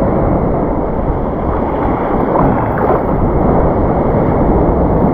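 Surf waves washing around a wader standing in the sea, with wind buffeting the microphone: a steady rush of noise.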